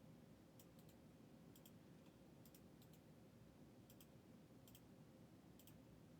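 Near silence broken by faint, sharp clicks, most of them in quick pairs, about one pair a second.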